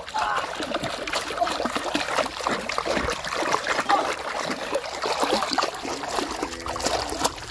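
A large hooked fish thrashing at the surface of shallow river water, with continuous churning and repeated sharp splashes.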